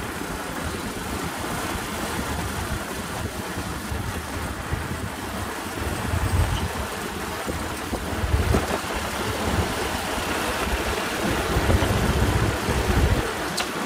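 Motorcycle engine running at steady cruising speed, under a continuous rush of wind noise with an uneven low rumble that swells and fades.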